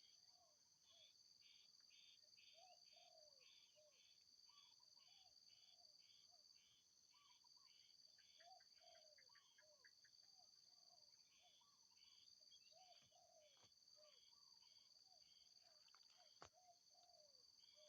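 Faint rural insect chorus: a steady high ringing drone with a train of chirps about twice a second. Over it, wild birds give short, downward-sliding calls now and then. A single sharp click comes near the end.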